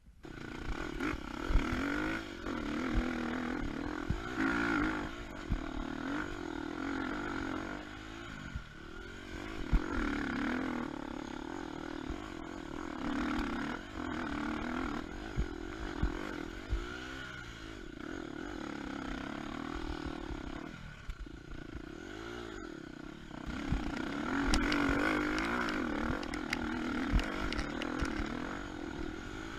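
KTM 250 EXC-F single-cylinder four-stroke dirt bike engine, its revs rising and falling again and again as it is ridden over rough ground. Short knocks and rattles of the bike over the terrain run through it.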